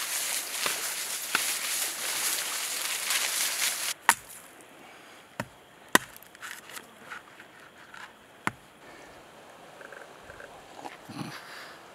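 Dry palm fronds rustling and crackling as a coconut is pulled down from a palm tree, for about four seconds until it stops suddenly. Then four sharp separate knocks of a machete chopping open a coconut, with a few lighter taps between them.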